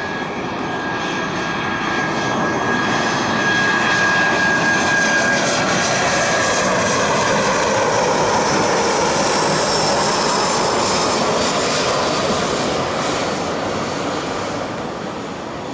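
Jet airliner passing low overhead on its landing approach. The engine whine and rumble swell to a peak about four seconds in, hold, and fade near the end, while the high whine drops slightly in pitch as it passes.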